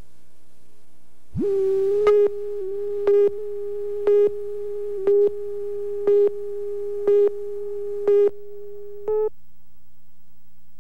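Videotape slate countdown tone: a steady electronic tone with a short beep marking each second of the countdown, eight beeps in all, the last one weaker. The tone cuts off suddenly about nine seconds in, leaving a faint low hum.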